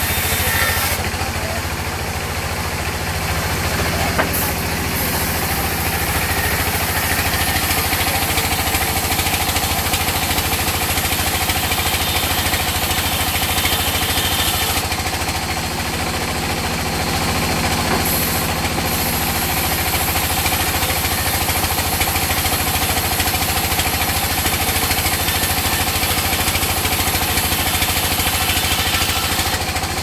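Sawmill band saw and its drive engine running steadily as a log is fed through the blade: a continuous low mechanical drone with a high, noisy cutting sound over it.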